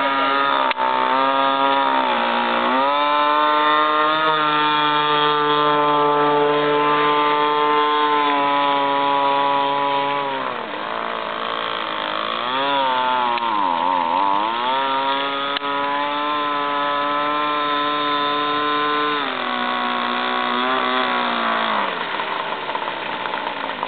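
RC speedboat's 25.4 cc two-stroke engine, converted from a Toro string trimmer, running hard at high revs. Its pitch sags and wavers about halfway through as the throttle is eased, climbs back, then settles lower over the last few seconds.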